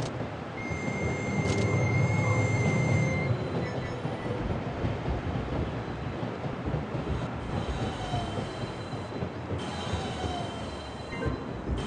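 Train running on the rails: a steady rumble, louder for a couple of seconds near the start, with a thin, high, steady squeal over the first few seconds.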